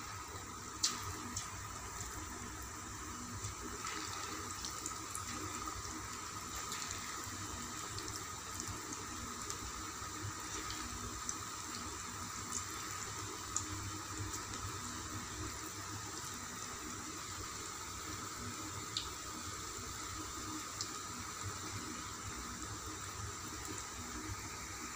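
Hot oil sizzling steadily in a kadai as chayote pakoda batter deep-fries, with a few faint ticks near the start.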